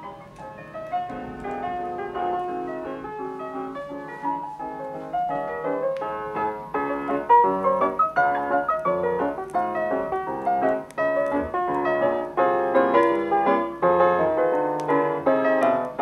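Piano music played back through a pair of Realistic Minimus-7 bookshelf speakers, a dense run of notes that grows louder over the first second or two.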